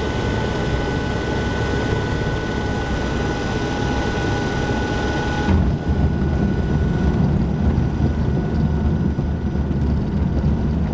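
Jabiru light aircraft's piston engine and propeller running, heard from inside the cockpit while the plane rolls along the runway. About halfway through, the steady high tones drop away and the low rumble grows heavier.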